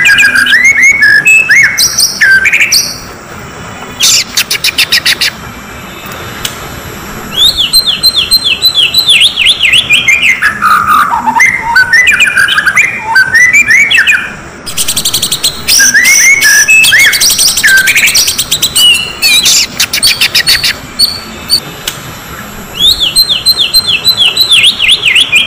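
Oriental magpie-robin (kacer) song: loud, varied chirps and quick falling runs of notes, broken three times by short, rapid rattles.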